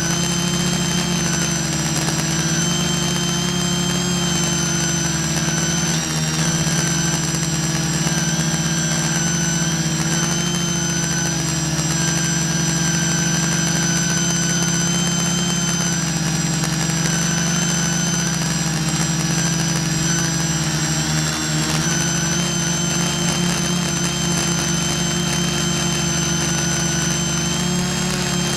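Quadcopter drone's electric motors and propellers buzzing steadily in flight, heard up close from its own onboard camera, the pitch wavering slightly as the motor speeds shift.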